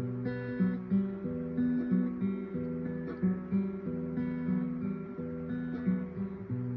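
Background music: acoustic guitar plucking and strumming chords at an even pace.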